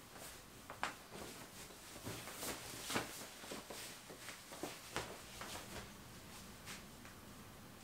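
Faint rustling of a shirt being pulled on over the head and straightened, with scattered soft clicks and taps, the loudest about one and three seconds in.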